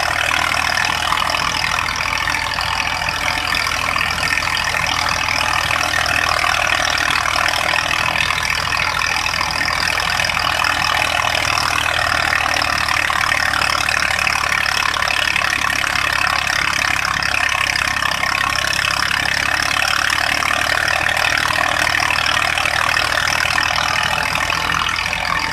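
Tractor diesel engine running steadily under load, driving a wheat thresher, with the thresher's drum and fan running as one continuous mechanical noise.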